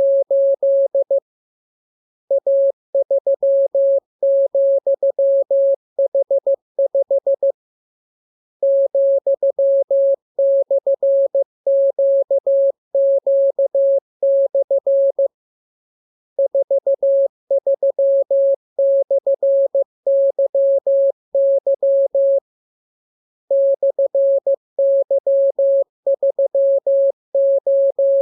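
Morse code (CW) practice transmission: a steady single-pitched beep keyed rapidly into dots and dashes. The characters come in stretches of several seconds, with pauses of about a second between them.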